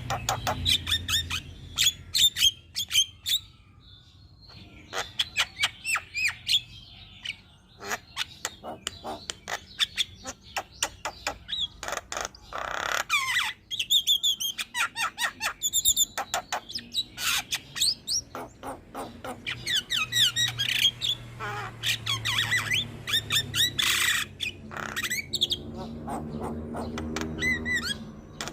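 Javan myna singing a long, varied song of rapid clicking runs, chirps, whistled notes and harsh squawks, in full continuous voice.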